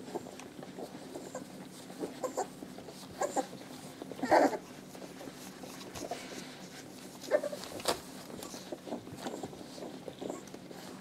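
Newborn puppies nursing from their mother, with small squeaks, grunts and suckling sounds and rustling of bedding, the loudest about four seconds in.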